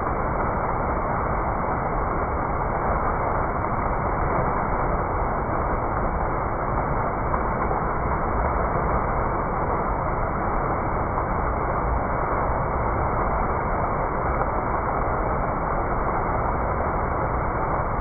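A fountain's frothy water jets shooting up and splashing back into the basin: a steady, even rush of falling water.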